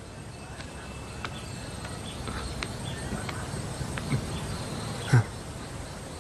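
Quiet background with scattered light knocks and one heavier thump about five seconds in.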